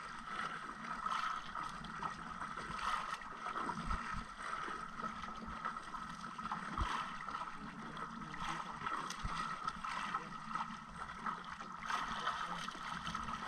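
Choppy sea water splashing and lapping against the hull of a small outrigger boat, with wind noise and irregular short splashes.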